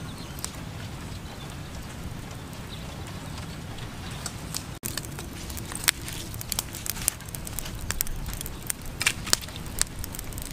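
A steady low rumble, then a charcoal fire under a bamboo grilling rack of fish crackling and popping with many sharp irregular snaps through the second half.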